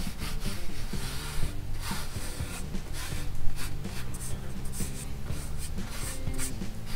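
Hand rubbing and smoothing aircraft covering fabric against a wooden fuselage frame: a series of irregular dry brushing strokes, over background music.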